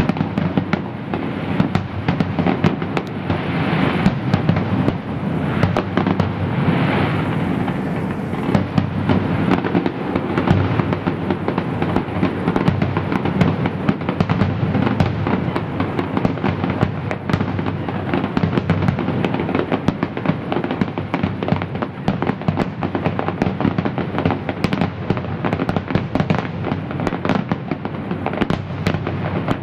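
Fireworks display: a rapid, unbroken barrage of bangs and crackles, with swells of crackling hiss a few seconds in.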